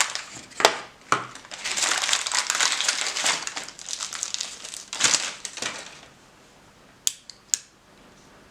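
Packaging wrapping crinkling and rustling as the knife is unwrapped and handled, followed near the end by a few sharp clicks.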